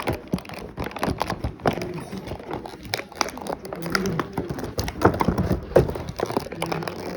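Unboxing handling noise: plastic packaging and small die-cast figures being handled, a dense, irregular run of clicks, taps and crackles.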